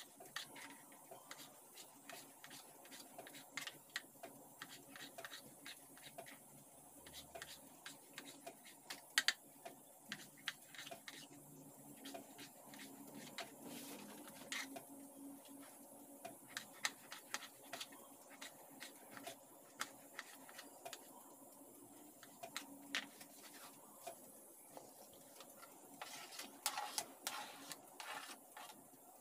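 Kitchen knife tapping on a plastic cutting board as peeled tomatoes are diced: quick, irregular light chops. Near the end, a denser run of sounds as the diced tomato is pushed off the board.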